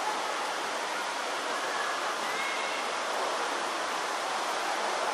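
Steady open-air background hiss on a football pitch, with a faint distant shout from a player about two seconds in.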